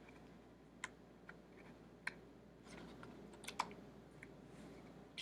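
A few faint, scattered clicks and taps over quiet room tone, with the sharpest ones about two and three and a half seconds in.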